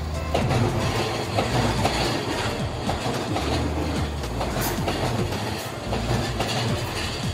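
Seibu 001 series Laview limited express passing close by: a steady rumble of the train with repeated clicks of its wheels over the rail joints.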